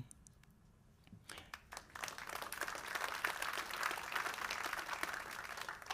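Audience applauding: a few scattered claps about a second in, building within a second into steady applause.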